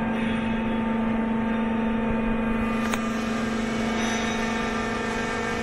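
Steady electric hum with a strong low tone from the geared motor driving the sliding steel door of a bitumen drum-melting chamber as the door is lowered, with a single sharp click about three seconds in.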